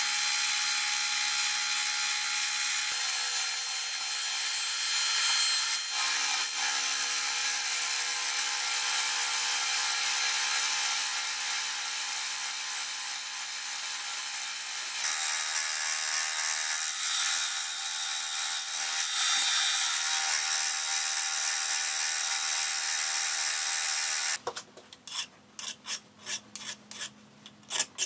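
A benchtop milling machine runs steadily while its face-milling cutter skims the surface of a mild steel block. About 24 seconds in, this gives way to a hand file rasping across the edge of the steel part in quick strokes.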